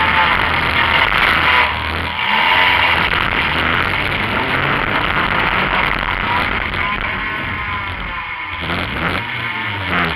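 Demolition derby compact car's engine revving up and down, heard from inside the cabin. The pitch swings twice, once about two seconds in and again in the last few seconds, over a constant loud rattle and roar.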